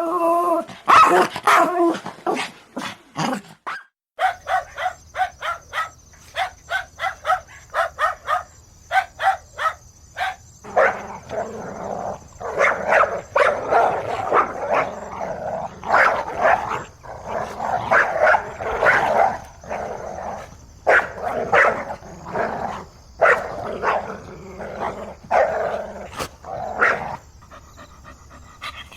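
Dog barking over and over in runs of short, sharp barks, a few a second. The barks come faster and denser in the second half. A few seconds in, a steady low hum appears behind the barking.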